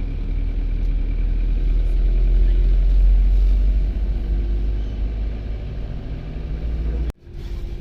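A car driving, with a steady low engine and road rumble. The sound cuts out abruptly for an instant near the end, then returns.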